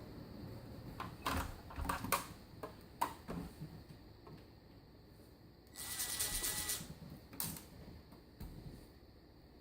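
Clicks and knocks of a screwdriver working on the screws of a Dish DVR's hard-drive mount, with a short whir of about a second from a small power screwdriver partway through.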